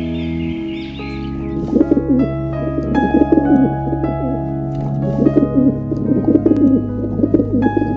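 Feral pigeons cooing, their low rolling coos repeating in clusters from about two seconds in, over steady background music.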